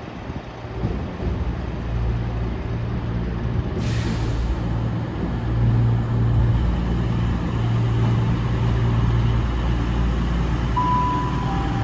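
CrossCountry Voyager diesel-electric multiple unit running into the platform, its underfloor diesel engines making a low, steady drone that grows louder as it draws near. There is a brief hiss about four seconds in, and near the end a short two-note tone, high then lower.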